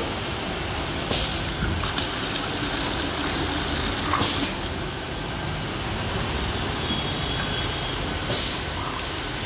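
Pneumatic actuator on a filling machine's stainless ball valve letting out short sharp hisses of air as it opens and shuts the valve, three times: about a second in, about four seconds in, and near the end. Between them water pours from the valve into a plastic bucket, over steady background noise.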